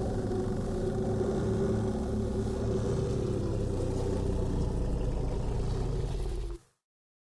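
Designed creature sound effect for Dreadnoughtus schrani, a giant sauropod dinosaur: one long, deep, held call that cuts off about six and a half seconds in.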